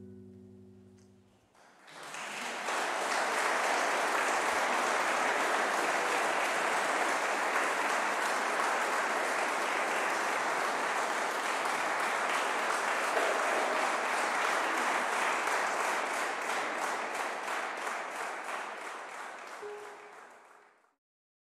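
The last held notes of the music die away. About two seconds in, audience applause starts and goes on steadily, then fades out near the end.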